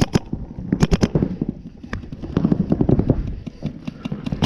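Paintball markers firing in rapid strings of sharp pops, with a quick burst of several shots about a second in and more scattered shots after.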